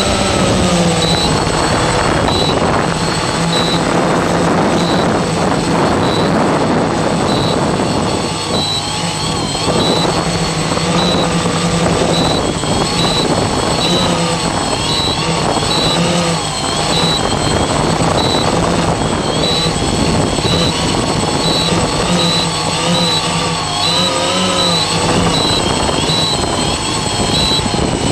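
Multirotor octocopter's electric motors and propellers buzzing in flight, their pitch wavering up and down as the throttle changes. A short high beep repeats about once a second.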